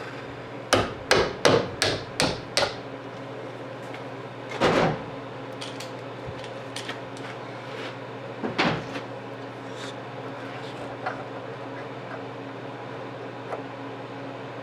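Hammer tapping on metal: a quick run of about six sharp knocks, then two heavier single knocks spaced a few seconds apart and a few light ticks, from work on a truck door hinge fitted with new brass bushings.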